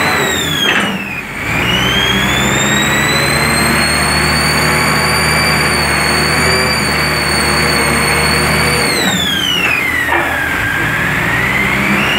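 Hydraulic pile press's engine-driven power unit running, with a whine that sags in pitch twice, briefly about a second in and longer from about 9 s, then climbs back each time. The machine is pressing a concrete pile into the ground with hydraulic rams.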